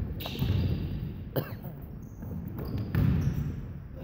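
A basketball bouncing on a gym's hardwood floor during play, as repeated low thuds with a few sharper knocks, echoing in the hall.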